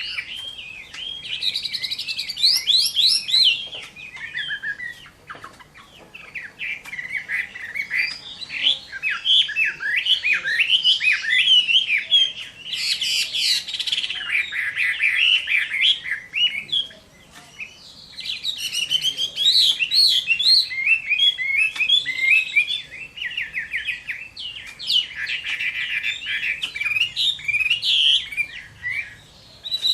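Chinese hwamei (Hwamei, Garrulax canorus) in full 'fighting' song: long runs of fast, varied, loud whistled phrases, with brief lulls about five seconds in and again past the halfway point.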